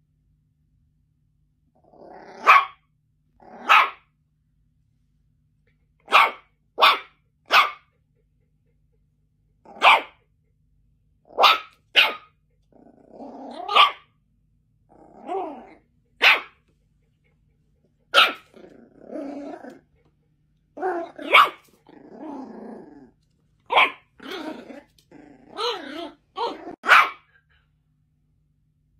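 Yorkshire Terrier barking in short, sharp yaps, about fifteen in all, some single and some in quick runs of two or three, with silent gaps between. In the second half, low, rough growling runs between several of the barks.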